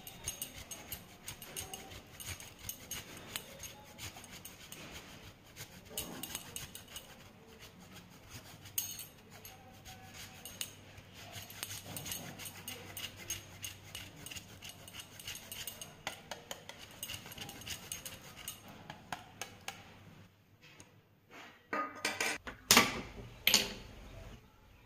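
Cheese grated on a handheld metal grater over a steel bowl: a long run of quick rasping strokes, with the grater clinking now and then against the bowl. Near the end, a few loud sharp clicks.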